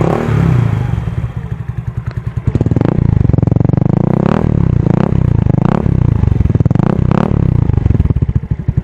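Yamaha Mio Soulty scooter's single-cylinder four-stroke engine idling through a newly fitted ORBR aftermarket exhaust pipe. From about two and a half seconds in it is revved in a series of about five quick throttle blips.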